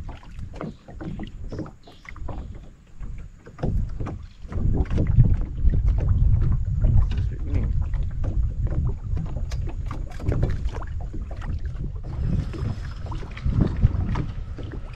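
Wind buffeting the microphone in uneven gusts, a heavy low rumble, with many small clicks and knocks from handling a giant freshwater prawn and the fishing gear in a small aluminium boat.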